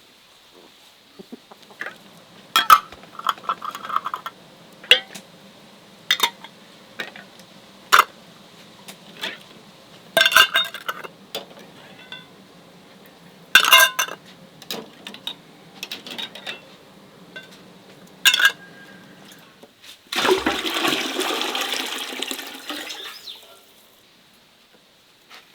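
A string of sharp knocks and clinks of things being handled, then a rush of water lasting about three seconds, starting about twenty seconds in.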